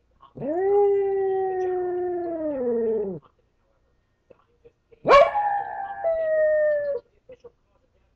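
Pet dog howling, the howl it gives when it thinks it has been left alone: two long howls. The first lasts about three seconds, holding its pitch then sliding down at the end; the second, about two seconds later, starts sharply and drops a step in pitch halfway through.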